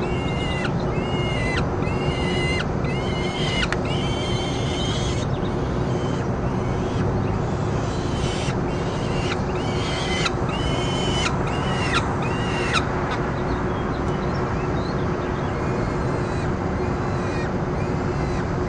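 Peregrine falcon calls at the nest: a run of short, arched, high-pitched calls about one a second that stop about 13 seconds in, over a steady hiss and a low hum.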